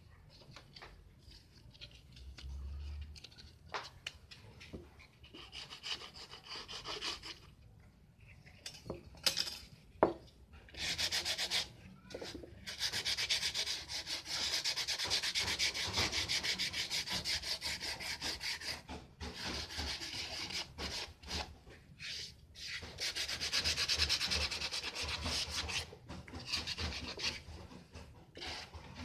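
A wooden piston pattern for sand casting rubbed back and forth by hand on sandpaper: rapid, even scraping strokes. Short spells come during the first ten seconds, with a sharp knock about ten seconds in. Then long steady runs follow through the middle, broken by a brief pause.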